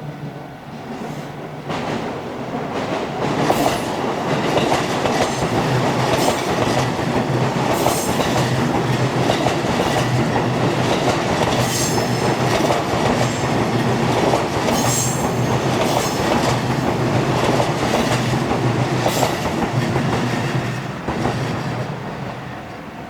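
An electric commuter train passing over a level crossing, its wheels clacking over the rail joints, with repeated high-pitched wheel squeals. It swells over the first few seconds and starts to fade near the end.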